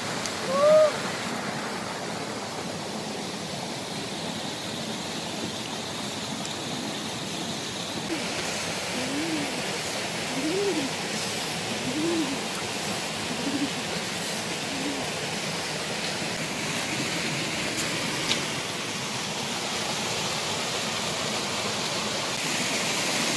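Steady rush of running water, like a stream. Short low hoot-like calls sound once near the start and then about five times, roughly one a second, in the middle.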